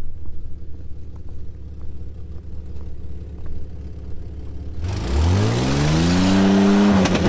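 A vehicle engine running at a low, steady idle, then about five seconds in revving up steeply with a loud rush of noise, holding high for a second or so before easing off near the end.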